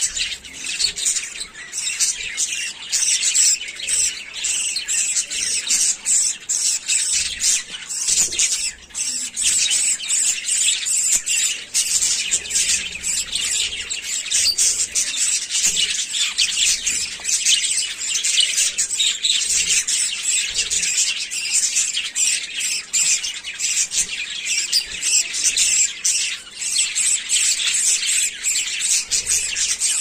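A group of budgerigars chirping and chattering without pause, many high calls overlapping at once.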